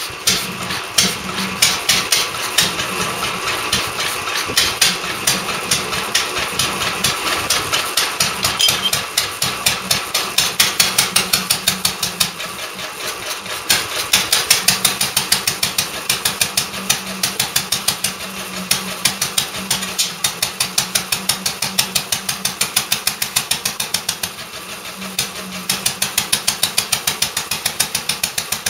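Single-cylinder Lister D petrol engine on a 1946 Parker cement mixer running after its rebuild, firing as a steady rapid beat of exhaust knocks. It falls back briefly twice, about halfway through and near the end, then picks up again.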